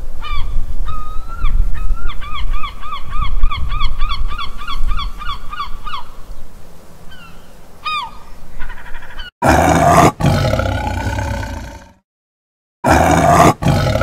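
A gull calling: a few calls, then a fast run of repeated calls at about three a second, then one more call. About nine and a half seconds in it gives way to a tiger roaring, twice, with a short silent gap between the roars.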